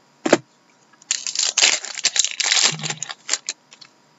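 Hockey trading cards being handled and slid against one another: a short knock near the start, then about two seconds of loud crinkling rustle in the middle, and a few sharp clicks.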